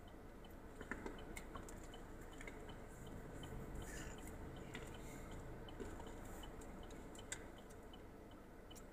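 Faint chewing of a donut, with small wet mouth clicks, over a low steady car-cabin hum. A faint regular ticking runs about three times a second.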